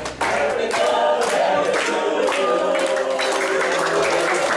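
A group of people singing together in chorus.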